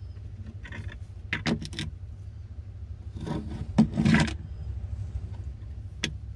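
An old plastic bilge pump being twisted and pried loose from its mount and lifted out: a string of short plastic scrapes, clicks and knocks, the loudest a sharp knock a bit past halfway. A steady low rumble runs underneath.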